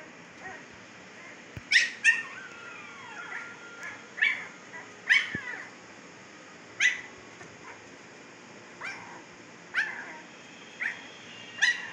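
15-day-old Siberian husky puppies yelping and squeaking: about nine short, high-pitched yelps, a second or two apart.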